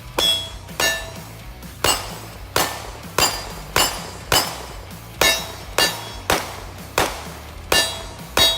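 CZ P-10 C 9 mm pistol fired in a steady string of about thirteen shots, roughly one every half second or so, each followed by a short metallic ring.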